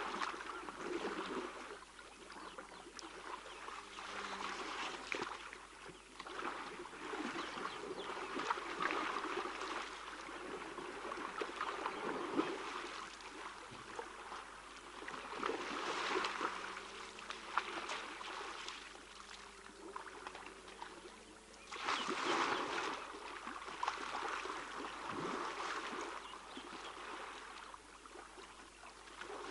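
Water splashing and sloshing as young African elephants roll and wallow in a shallow waterhole. It comes in uneven surges with small sharp knocks, the biggest splash about three-quarters of the way through.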